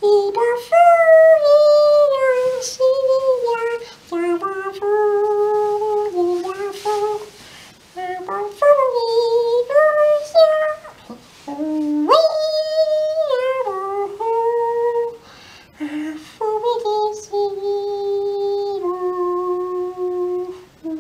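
Vocal imitation of a music box playing a slow lullaby-like tune: a single voice holds a melody of sustained notes, with a few faint clicks between some of them.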